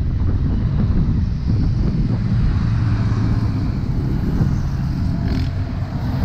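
Steady road traffic of cars and motorcycles passing close by on a multi-lane avenue, a continuous low rumble of engines and tyres heard from a moving bicycle.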